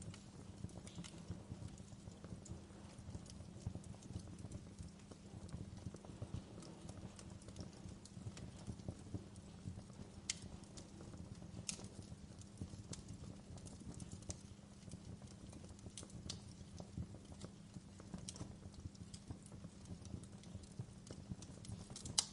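Wood fire crackling in a fireplace: a steady low rumble of burning under irregular small crackles, with a few sharper pops, the loudest near the end.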